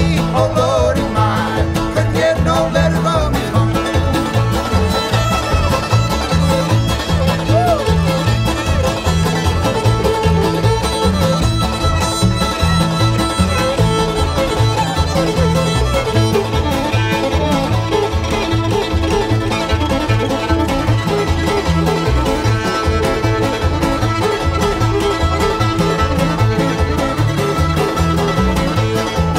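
Old-time string band playing an instrumental break, with the fiddle out front over driving banjo, guitar and upright bass, and no singing.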